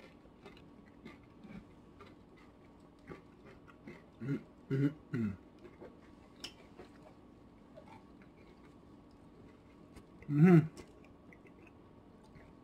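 Two people chewing cheese-covered nacho chips, with small crunches and mouth clicks scattered throughout. A few short low vocal sounds come about four to five seconds in, and one louder one comes near the end.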